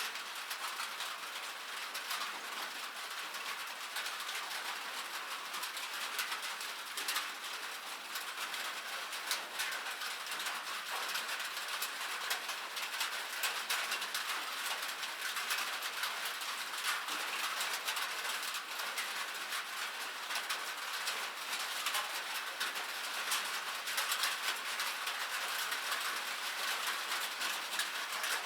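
Steady rain on metal: a dense, even pattering of many small drops ticking on a metal surface.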